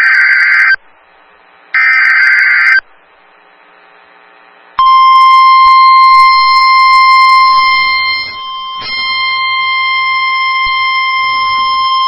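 Emergency Alert System signal on NOAA Weather Radio: two harsh, screeching SAME digital header bursts of about a second each, then, about five seconds in, the steady 1050 Hz weather-radio warning alarm tone starts and holds, signalling that a warning (here a tornado warning) is about to be read.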